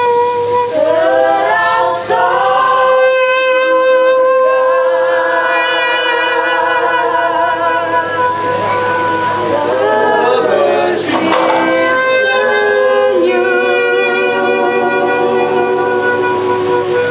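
Experimental group performance of long, overlapping held notes, mostly voices singing sustained tones, with slow upward pitch glides and a brief noisier flurry about two-thirds of the way through.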